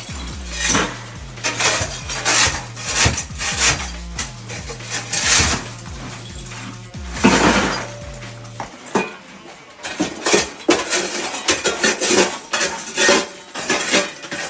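Ceramic bathroom tile being broken off and smashed: a string of sharp cracks and clattering impacts, irregular throughout. Background music with a low bass line plays underneath and stops about nine seconds in.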